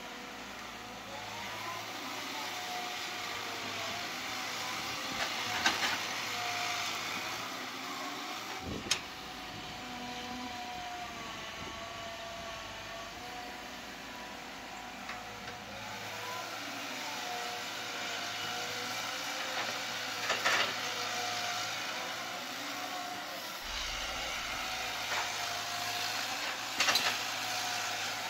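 Caterpillar 312B hydraulic excavator's diesel engine running under load as it digs, its pitch rising and falling with the work of the hydraulics. Now and then come sharp clanks of the bucket and rocks.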